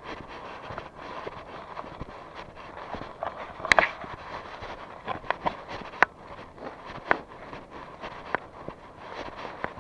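Footsteps of a person walking outdoors: irregular sharp steps over a steady outdoor hiss, with a louder scuffing cluster about a third of the way in.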